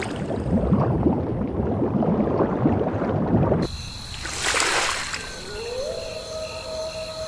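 Water splashing and sloshing for about three and a half seconds. It cuts off suddenly and gives way to a short whoosh, then a steady tone that glides up and holds.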